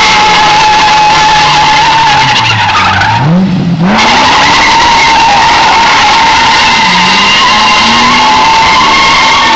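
Car tyres squealing loudly and steadily as the car slides in smoking circles, with the engine held at high revs underneath. About three seconds in the squeal briefly cuts out while the engine note sinks and then climbs sharply, and the squeal comes back.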